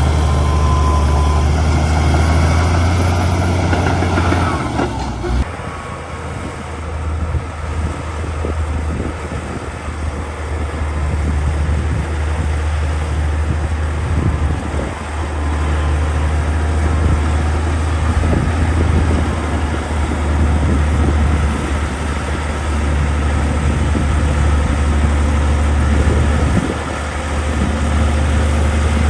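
Heavy diesel engine of earthmoving machinery running steadily, its note changing about five seconds in and then rising and falling.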